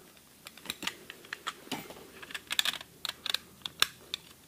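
Utility knife cutting and trimming black bitumen sealing tape wrapped around a corrugated plastic conduit, heard as irregular light clicks and a brief rustle about two and a half seconds in.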